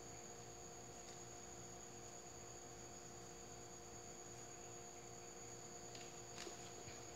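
Near silence with a steady electrical hum, and a few faint soft ticks near the end.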